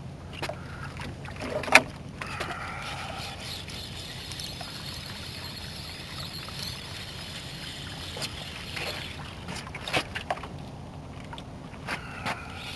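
Small boat's motor running steadily at low trolling speed. A sharp knock comes about two seconds in, with a few lighter clicks later, as a rod is handled and a fish reeled in.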